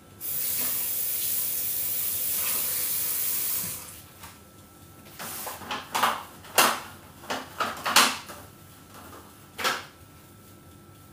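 Kitchen tap running for about three and a half seconds and then shut off. After it comes a run of sharp clattering knocks of dishes and kitchenware being handled at the sink, loudest about six and a half and eight seconds in.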